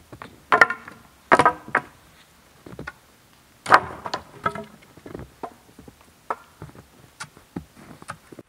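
Blows on wood, as in chopping or driving wooden stakes: several heavy knocks in the first four seconds, the loudest near four seconds in, followed by lighter knocks and taps.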